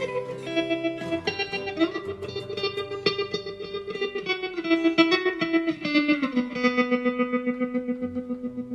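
Guitar music, plucked notes played through effects, with a regular pulsing beat; the melody steps down in pitch about five to six seconds in.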